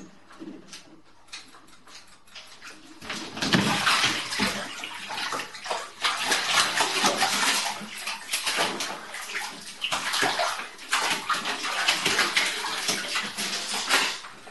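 A Munchkin cat plunges into a bathtub full of water with a splash about three seconds in. It then splashes and thrashes in the water for about ten seconds, and the splashing stops near the end.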